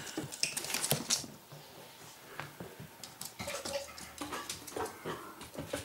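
English Springer Spaniel puppy playing with and chewing a soft toy on the floor: faint scuffles and scattered light taps, with small puppy noises.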